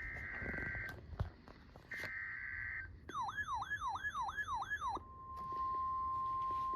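NOAA Weather Radio Emergency Alert System broadcast: the last two bursts of the SAME header's digital data tones, a harsh buzzing chirp about a second each. Then about two seconds of a warbling, siren-like alert tone sweeping down in pitch about three times a second. About five seconds in, the steady 1050 Hz weather radio warning alarm tone begins, signalling that a warning message is about to follow.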